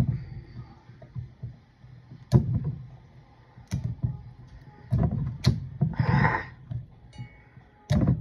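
Plastic wrap being peeled off a CO2 gas canister: several sharp knocks and taps as the canister is handled, with a brief crinkling rustle of plastic about six seconds in.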